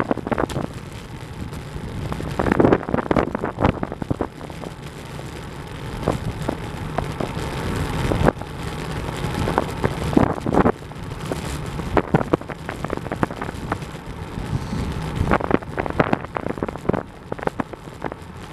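Wind buffeting the microphone of a moving rider, an uneven gusty rush with road noise underneath at about 33 km/h.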